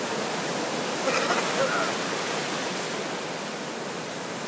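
Steady hiss and wash of shallow surf foaming around a boogie boarder, with a faint voice briefly about a second in.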